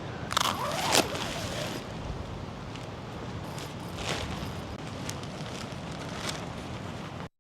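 Handling noises while a tent is pitched on sand: a rustle with sharp clicks in the first second, then a few fainter clicks over a steady wind-and-surf hiss.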